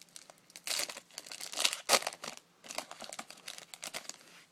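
Foil trading-card pack wrapper being torn open and crinkled by hand, in irregular bursts of crackling.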